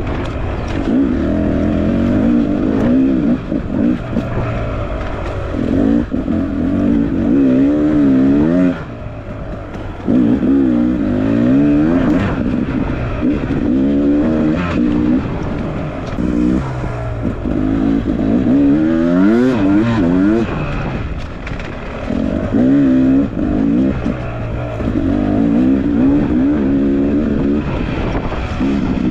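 Off-road trail motorcycle engine revving up and down over and over under throttle, its pitch sweeping upward in short runs and falling back. Around nine seconds in it drops briefly to low revs.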